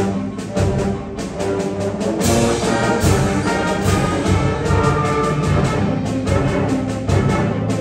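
Eighth-grade concert band playing live: brass and woodwinds sustaining chords over a steady percussion beat.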